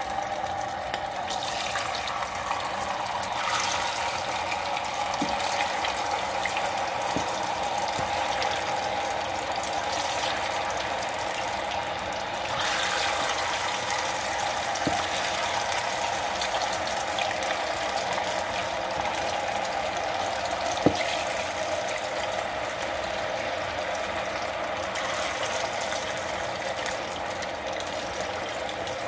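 Potato strips deep-frying in hot oil, a steady sizzle with a few small ticks and one sharper pop about two-thirds through.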